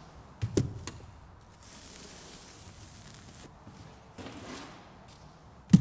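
Trowel scraping and working wet adhesive mortar on a mineral-wool insulation board, with a couple of short knocks about half a second in and a sharp knock near the end.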